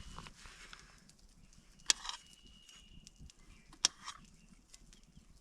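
Knife cutting morel mushrooms on a hard surface: two sharp taps about two seconds apart, each followed by a brief rustle.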